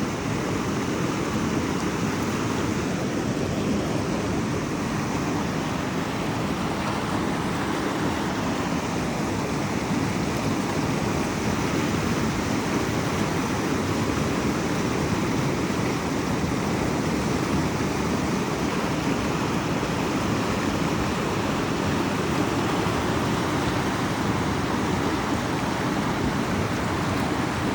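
River water rushing steadily, an even wash of noise that holds at the same level throughout.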